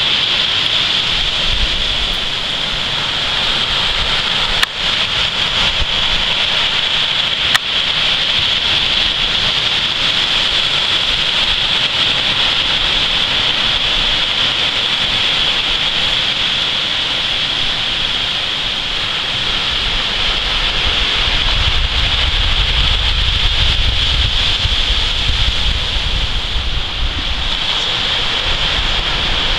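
Steady wash of surf on a sandy beach with a constant high-pitched hiss over it. Wind rumbles on the microphone for several seconds about two-thirds of the way through, and two brief knocks come in the first quarter.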